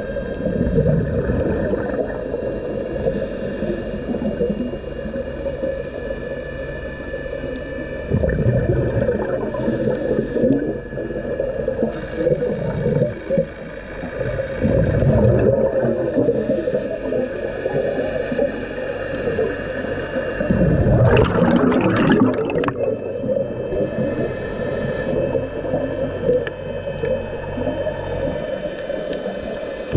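Scuba diver breathing through a regulator, heard underwater: exhaled bubbles gurgle out in bursts about every six or seven seconds, the loudest about three-quarters of the way through, over steady underwater noise.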